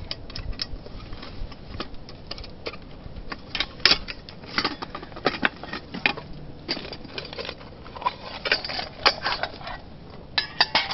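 Metal camp cookware and utensils clinking and clattering in irregular light clicks, with one clink ringing briefly about eight seconds in.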